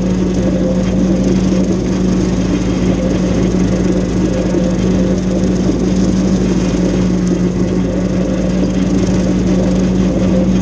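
Tractor-driven brush hog (rotary cutter) running steadily while mowing tall grass, with the tractor's diesel engine under load: a constant mechanical drone with a steady hum.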